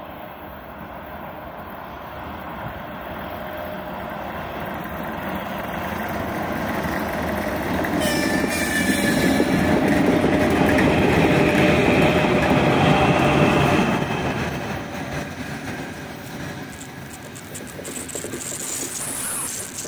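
3ES5K 'Ermak' three-section electric freight locomotive approaching and passing with a loaded freight train. It grows louder for about eight seconds and is loudest from about 8 to 14 s as the locomotive goes by, with a steady whine over the rumble. The wagons then roll past more quietly, with a brief high squeal near the end.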